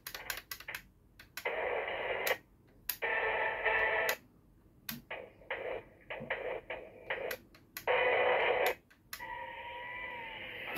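Bootleg CSM Amazons Driver toy belt playing its electronic sound effects and callouts in several tinny bursts through its small built-in speaker, with sharp clicks between them as its grips are worked. A steadier standby sound begins near the end.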